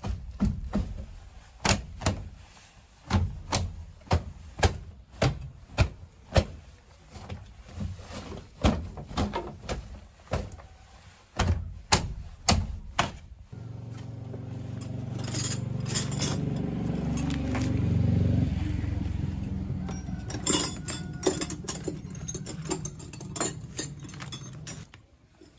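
Metal parts and tools clinking and knocking irregularly, then a machine starts about halfway through and runs with a steady low hum that swells and then eases before cutting off near the end.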